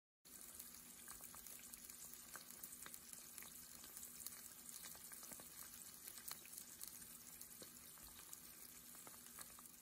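Omelet frying in a pan: a faint, steady sizzle with many small crackles and pops.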